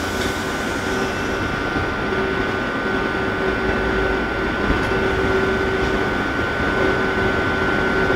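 Electric commuter train standing at the platform, its onboard equipment running with a steady hum and a thin, constant high whine, with a fainter lower tone that comes and goes.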